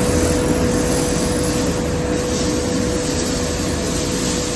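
Dog food forming machine and conveyor line running: a steady mechanical drone with a constant humming tone.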